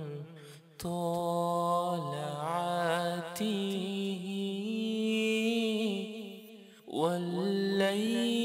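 A recorded solo singing voice playing back through a digital audio workstation, held notes sitting flat on pitch with quick slides between them, as from Auto-Tune, with reverb and delay on the insert. The voice breaks off briefly about half a second in and again near seven seconds.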